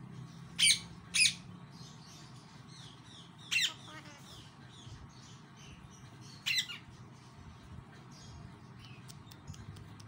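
Alexandrine parakeet squawking: two short, loud calls in quick succession about half a second in, two more at wide intervals after that, and soft chirps between them.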